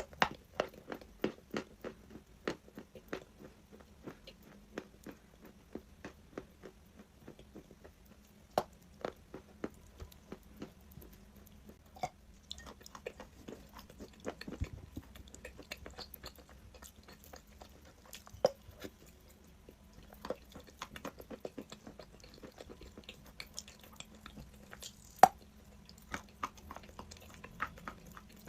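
A person biting and chewing crunchy chalk: an irregular run of sharp crunches and crackles, with a few louder snaps.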